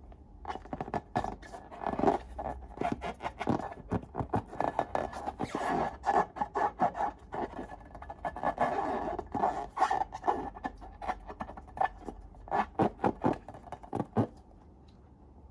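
Slime being mixed and scraped in a bowl: a dense run of sticky clicks, crackles and scraping that starts about half a second in and stops shortly before the end.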